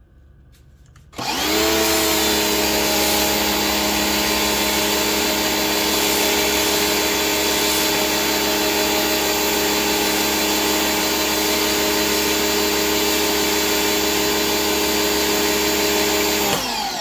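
PowRyte 3800R electric pressure washer starting up about a second in, its motor and pump rising in pitch and then running steadily with a loud spray hiss as it feeds the foam cannon. It spins down near the end.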